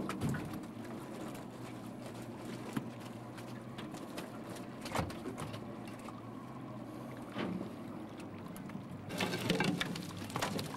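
A boat's motor runs steadily as a gillnet is hauled over the bow roller, with a few single knocks and splashes as floats and fish come up. Near the end a rapid patter of wet herring and net slapping and dropping into the boat sets in.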